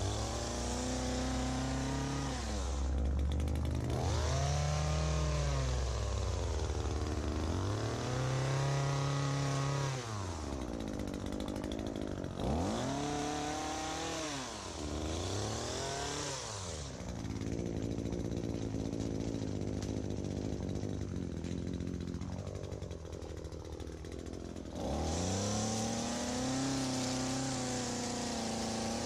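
ECHO PAS-2620 two-stroke power head driving an articulating hedge trimmer attachment, its engine revving up and down again and again as the blades cut the shrubs. It settles to a lower, steadier speed for several seconds, then revs up sharply and holds high near the end.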